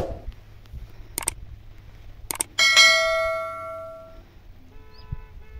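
A few knocks, then a metal object struck once, ringing like a bell and fading over about a second and a half; a fainter steady ringing tone begins near the end.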